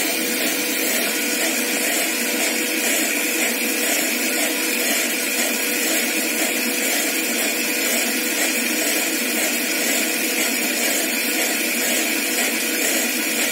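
Automatic cotton wick-making machine running with its small electric motors and a band sealer's conveyor, a steady continuous mechanical whir that holds one level throughout.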